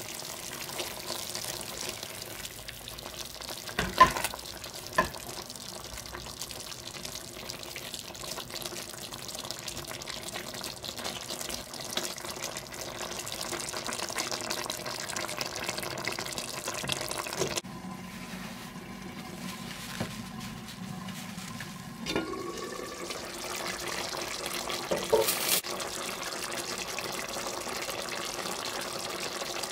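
Water being poured into a pot of browned pork, carrot and onion: a steady splashing hiss. Two sharp knocks come about four and five seconds in. The hiss drops away suddenly after about seventeen seconds and picks up again some five seconds later.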